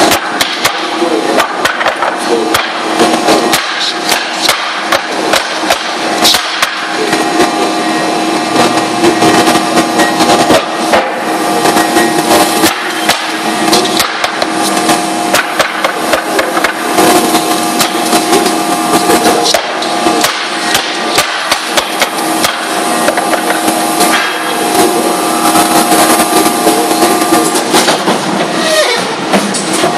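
Industrial guillotine paper cutter in a print shop, its machine hum running steadily under frequent sharp knocks and slaps as stacks of paper are handled on its table and trimmed.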